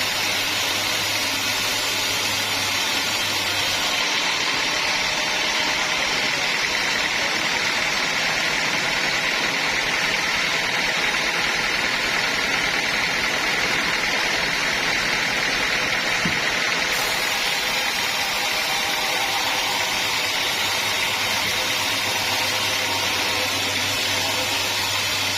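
Sawmill saw running steadily, cutting through a teak log.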